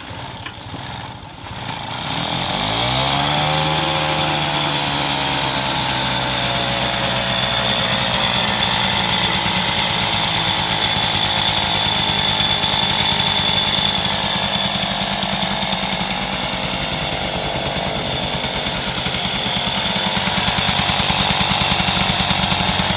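1979 Mobylette 50V moped's two-stroke single-cylinder engine, fitted with a 70cc kit, being pedal-started from cold on its stand: it catches about two and a half seconds in, its pitch rising quickly, then runs steadily.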